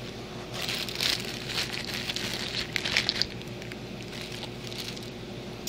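A plastic bag crinkling and rustling as toy figures and plastic capsules are handled and tipped out of it, with a few sharp clicks, for about three seconds before it stops.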